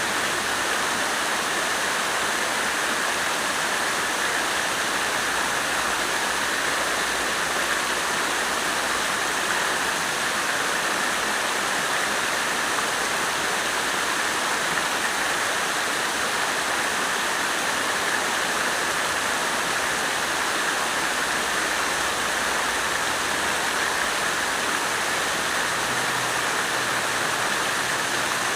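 Water fountain splashing steadily, a continuous even rush of falling water.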